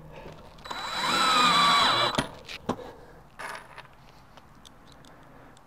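Cordless drill driving a screw through a pocket hole into a plywood frame: the motor whines for about a second and a half, sagging slightly in pitch as the screw seats. Two sharp knocks follow, then a shorter burst from the drill about three and a half seconds in.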